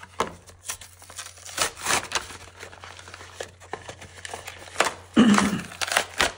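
Packaging crinkling and tearing in irregular rustles and clicks as a figure is unwrapped, with a louder crackle about five seconds in.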